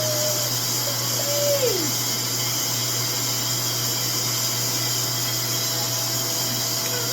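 RevAir reverse-air hair dryer running steadily, its motor pulling air through the wand with a constant hum and hiss. About a second and a half in, a short tone slides downward.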